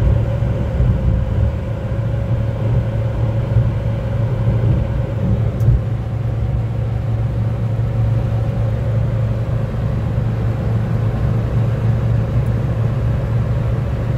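Cabin noise of a Suzuki Wagon R cruising flat out at about 140 km/h: a steady low drone of engine and road noise, with a thin steady tone above it.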